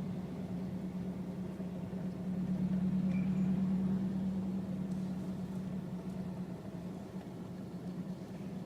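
Small truck's engine and road noise, a steady low drone heard from inside the cab while driving; it swells slightly a few seconds in, then eases off.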